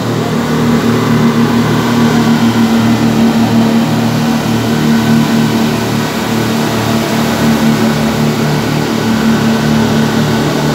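Passenger fast boat's engines droning steadily under way, heard from inside the enclosed passenger cabin. Several low, even engine tones hold steady without rising or falling.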